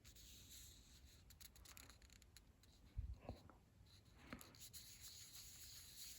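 Near silence with faint handling sounds: light scratching and small clicks, and one soft low thump about three seconds in.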